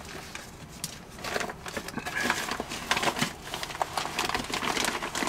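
Paper mailer bag rustling and crinkling as hands work inside it and tip it to get the contents out: irregular crackles that grow busier about a second in.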